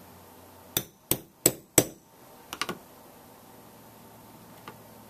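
Small hammer striking a steel pin punch to drive out the ejector pin of an AR-15 bolt: four sharp metallic strikes about a third of a second apart in the first two seconds, then two lighter taps.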